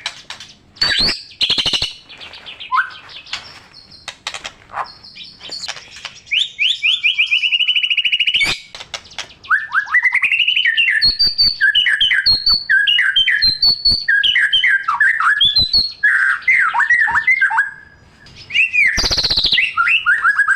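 White-rumped shama (murai batu) in full, continuous song: sharp clicking notes, a rapid buzzy rising series, then a long run of varied loud whistled phrases, with a short lull before another phrase near the end.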